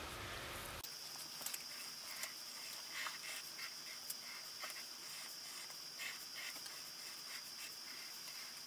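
Fine-tipped pen scratching on paper in many short strokes as lines are drawn, faint, over a steady high-pitched whine.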